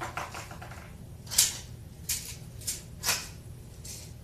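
Daisy 117 Targeteer spring-powered BB pistol being recocked by hand: a string of about five short metallic clicks and scrapes from its slide action, the first about a second in the loudest. It opens on the fading ring of a shot just fired.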